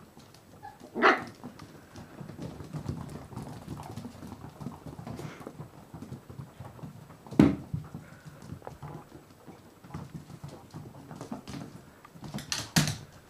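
Puppies and a dog playing on a laminate floor: paws and claws pattering and scrabbling on the hard floor, broken by a few short, sharp barks. One bark comes about a second in, the loudest around seven seconds in, and a quick couple near the end.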